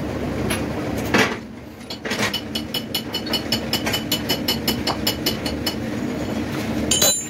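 Light metal-on-metal tapping, about five quick ringing clinks a second for a few seconds, with a louder metal knock about a second in and another near the end, over a steady low workshop hum.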